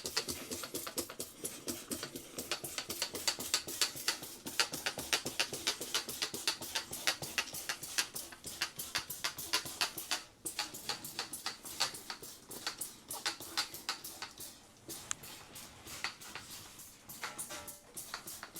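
Hand trigger spray bottle pumped rapidly, a quick run of short squirts about five a second, with a short pause about ten seconds in, soaking a washing machine's rubber door seal with cleaner.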